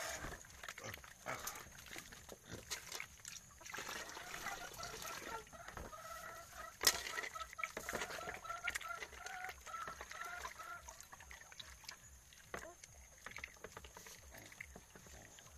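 Land snail shells rubbed and knocked together by hand in a metal basin as they are cleaned, a patter of small clicks with one sharp clink about seven seconds in. A hen clucks in a run of short repeated notes, about three a second, from about four to eleven seconds in.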